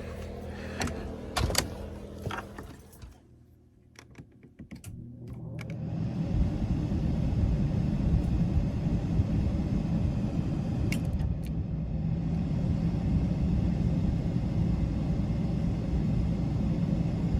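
A few clicks and knocks, then a brief lull. About five seconds in, a steady low machine hum sets in and keeps running.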